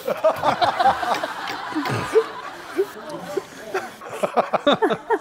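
Men laughing and chuckling in choppy bursts, heaviest in the first second and again near the end.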